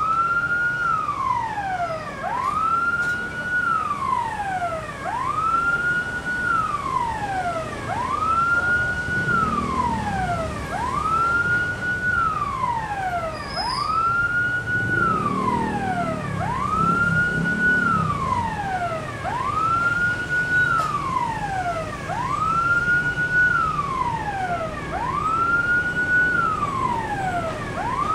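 Electronic level-crossing warning siren wailing over and over, about every two seconds, each cycle a quick rise, a short hold and a slower fall. Partway through, the low rumble of the approaching diesel locomotive swells twice under it.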